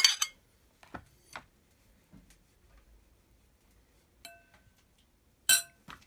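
A spoon clinking against a dish while the salad is laid out. There is a knock at the start, a couple of light taps, then a clink that rings briefly about four seconds in and a louder knock near the end.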